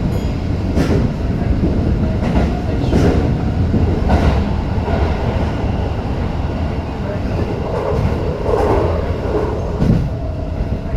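Tokyo Metro 05 series electric train running at speed, heard from inside the front car: a steady rumble of wheels and running gear, with irregular clicks as the wheels pass rail joints.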